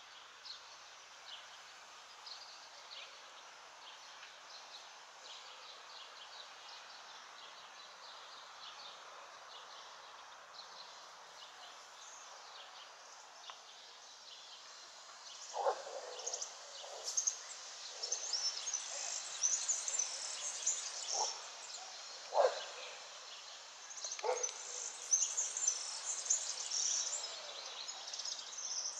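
Outdoor ambience of small birds chirping over a steady background hiss. About halfway through the chirping grows louder and busier, and a few short, lower sounds stand out.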